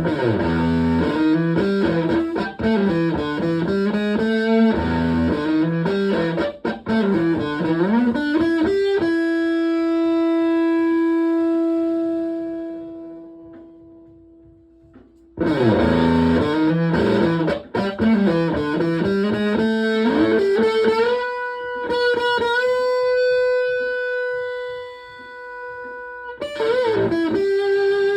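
Epiphone Les Paul electric guitar played through a Tone Bender MKII-style germanium fuzz pedal into a Fender Twin Reverb-style amp. It plays a lead phrase full of string bends, then lets one long note sustain and fade away. The phrase comes back, followed by held, bent notes.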